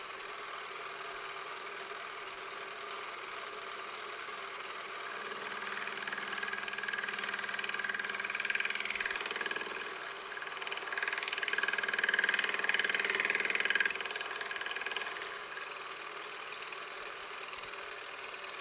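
Milling machine spindle running with a dovetail cutter, hand-fed to take a light finishing cut along the edge of a metal workpiece. Under a steady machine hum, a higher cutting whine grows louder twice: about five to nine seconds in, and again from about ten and a half to fourteen seconds.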